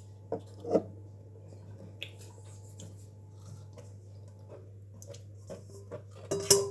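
Light knocks and clicks of kitchen things being handled on a worktop, with a steady low hum underneath; two louder knocks come about half a second in and another near the end.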